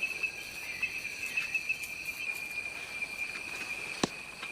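Steady, high-pitched insect chirring, such as crickets or cicadas, as forest ambience, with a single sharp click about four seconds in.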